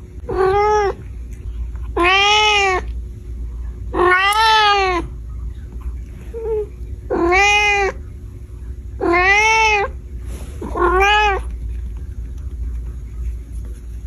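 A cat meowing six times, each meow about half a second to a second long and rising then falling in pitch, the calls a second or two apart and stopping about two-thirds of the way through.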